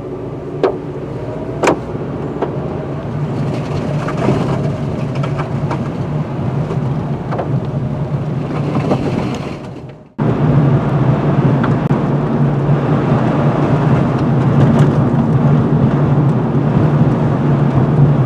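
A car driving on a wet, slushy road, heard from inside the cabin: a steady engine and road hum with tyres hissing through slush, and two sharp clicks in the first couple of seconds. The sound cuts out for a moment about ten seconds in and resumes slightly louder.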